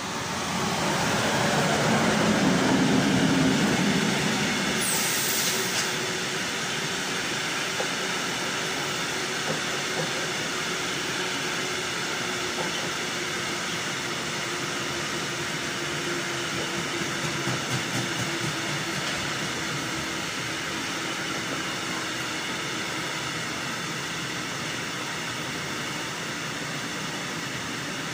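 Freight train passing close by: an electric locomotive goes by first, loudest in the first few seconds. It is followed by a long line of open freight wagons rumbling steadily past, with wheels clicking over the rail joints. A brief hiss comes about five seconds in.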